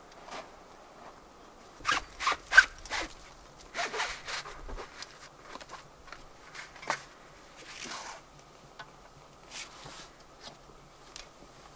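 Canvas of an Alu-Cab Gen 3 roof top tent being pulled, rubbed and folded in as the tent is packed down: a run of short rasping and rustling strokes, the sharpest cluster about two seconds in.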